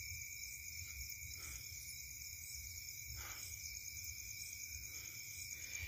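Crickets calling in a steady night-time chorus, several unbroken high tones at once, fairly faint.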